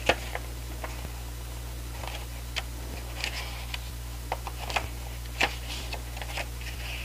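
Pages of a small paper album booklet being turned and handled: scattered soft rustles and crisp paper clicks, the sharpest right at the start and again about five and a half seconds in.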